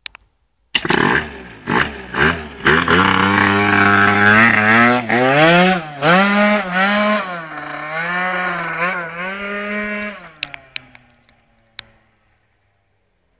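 Two-stroke Yamaha Aerox scooter tuned with a Stage6 kit revving in a few short blips, then accelerating hard away, its engine note rising high and wavering as the throttle is worked. It fades out as it rides off near the end.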